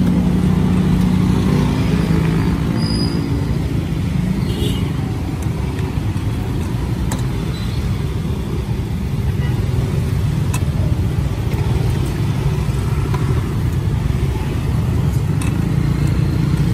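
Steady low rumble of street traffic, with motor vehicle engines running close by.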